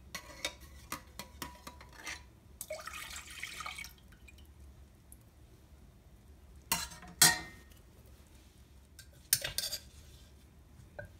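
A metal spoon and ladle clinking and scraping against a stainless-steel pot while stirring liquid in it, with small drips and splashes. Scattered light taps, then two sharper clinks a little past halfway and two more near the end.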